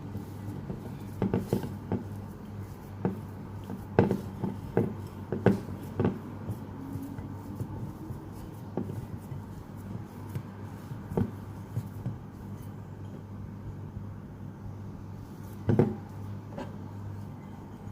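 Mixing utensil stirring cookie dough in a bowl, with irregular knocks and clicks against the bowl, over a steady low hum.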